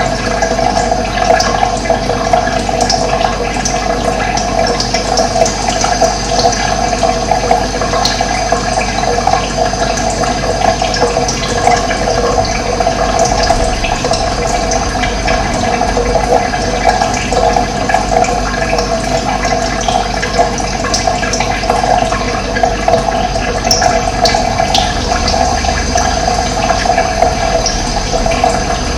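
Running water flowing steadily and continuously, with a few faint, brief bird chirps over it.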